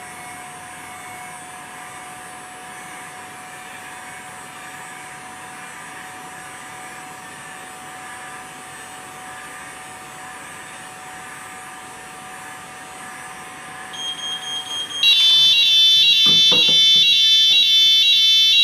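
Heat gun blowing steadily with a faint whine while it heats a Notifier Smart 2 detector. About 14 seconds in a pulsing beep starts, and a second later the fire alarm sounders go off loudly in a fast repeating multi-tone pattern: the detector's heat element has tripped the panel into full fire.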